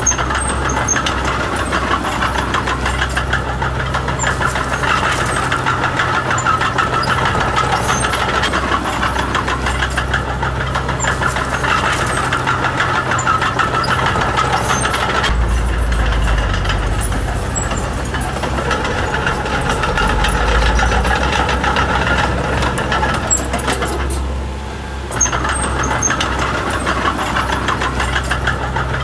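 Diesel engine of a Komatsu D20P mini bulldozer running steadily. Its low note gets stronger twice midway and eases briefly near the end, with faint metallic clinks over it.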